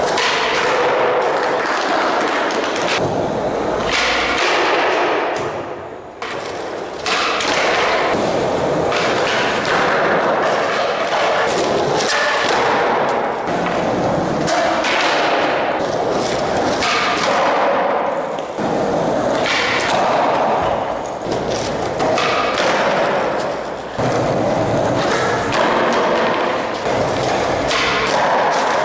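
Skateboard wheels rolling on a concrete floor, with repeated thuds as the board is popped and the board and feet land, in a large concrete hall.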